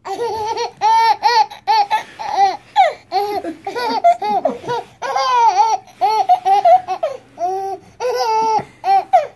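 A baby laughing: a long run of short, high-pitched laughs and squeals, one after another with brief gaps.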